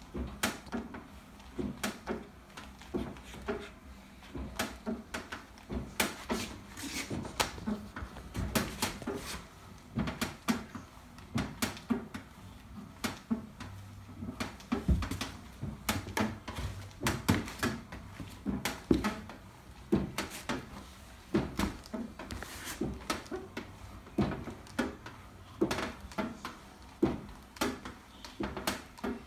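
NordicTrack SpaceSaver elliptical in use: the crank arm and flywheel assembly give off repeated clicks and knocks, roughly once or twice a second with each turn. This is the unwanted noise the owner is recording.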